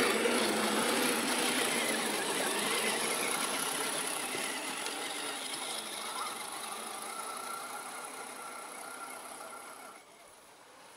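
Several radio-controlled scale trucks driving over grass and dirt, their small electric motors and gears whining, growing fainter as they pull away. The sound drops off sharply near the end.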